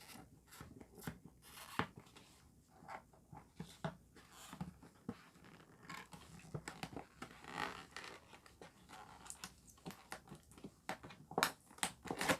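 Plastic food packaging rustling and crinkling as grocery items are handled and unpacked, with many short taps and clicks.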